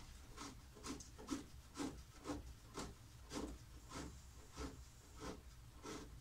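Faint plastic rubbing and scraping in short repeated strokes, about two a second, as the Porsche 911SC's washer fluid tank cap is twisted off by hand after being freed with pliers.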